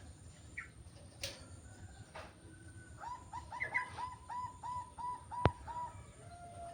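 A bird calling: a few short chirps, then a quick run of about ten repeated hooked notes, a little over three a second. A single sharp click sounds near the end of the run.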